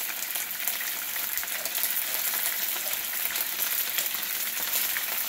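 Chicken pieces frying in oil in a nonstick skillet: a steady high sizzle with fine crackling as crushed garlic goes into the hot pan.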